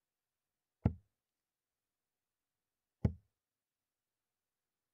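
Steel-tip darts striking a Winmau bristle dartboard: two single, sharp thuds about two seconds apart, the first two darts of a visit landing in the treble 20.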